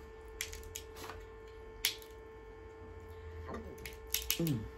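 Crab leg shell clicking and crackling in a few short snaps as it is picked apart by hand, over a steady electrical hum. A short murmur of a voice a little after four seconds.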